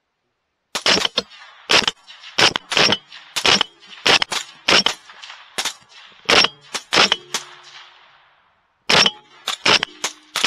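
Rapid rifle fire: about twenty sharp shots, one to three a second, each with a short echo. The shooting pauses for about a second near the end, then starts again.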